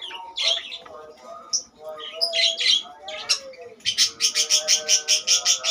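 Budgerigar chirping and warbling, ending in a fast, even run of sharp chirps about ten a second, starting about four seconds in.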